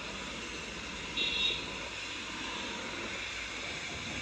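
Batter dumplings deep-frying in a wok of hot oil, a steady sizzle. A brief high-pitched tone cuts in about a second in.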